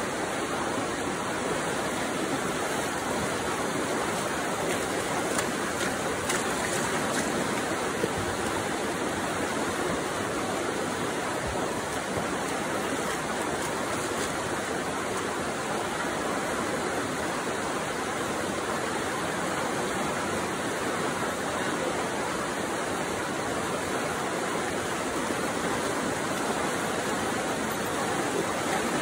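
Muddy floodwater of a swollen river rushing steadily over a shallow crossing.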